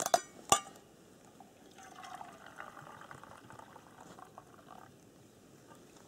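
Two sharp clicks about half a second apart from a pike tip-up being set down on the ice over a fishing hole. After them comes a few seconds of faint watery trickling with small ticks.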